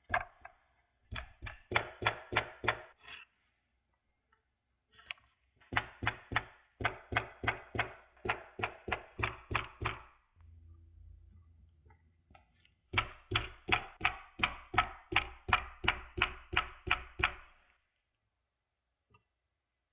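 Hammer tapping a steel socket used as a drift, setting pins into the cast iron frame of an antique tobacco cutter. It comes in three runs of quick, ringing metallic taps, about four a second.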